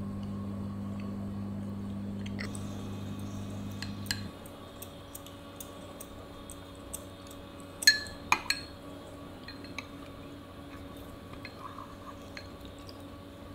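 Ceramic spoon clinking against a ceramic coffee cup: a few light clinks, the loudest three in quick succession just past the middle. A low steady hum stops about four seconds in.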